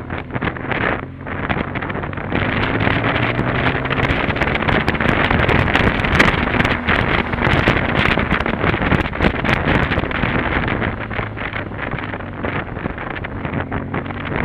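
Wind buffeting the microphone of a camera on a moving BMW R 1200 GS Adventure, over the steady drone of the motorcycle's flat-twin engine. The wind noise grows louder about two seconds in and eases off in the last few seconds.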